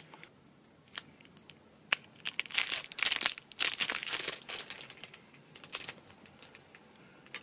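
Clear plastic wrapper on a lollipop crinkling as it is handled, in irregular bursts, with a couple of sharp clicks in the first two seconds.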